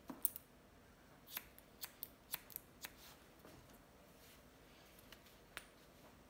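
Hairdressing scissors snipping through hair in short, crisp cuts: about eight snips in quick succession over the first three seconds, then one more a little before the end.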